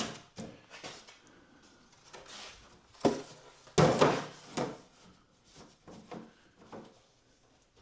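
Plastic milk crates being set on top of one another: a few hollow knocks and clatters, the loudest around three to four seconds in, with quieter handling sounds between.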